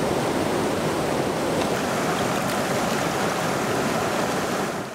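River water rushing over rocks and through rapids: a steady, even rush of flowing water.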